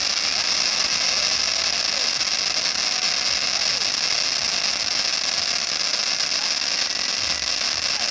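Large ground firework fountain spraying sparks: a loud, steady hiss with no let-up.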